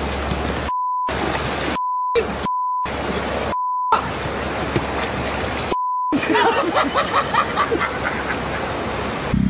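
Five short censor bleeps, each a single steady tone under half a second long that replaces all other sound, cut into loud rushing noise. The bleeps come in the first four seconds and once about six seconds in. After that the noise goes on unbroken, with a choppy patch of higher sounds.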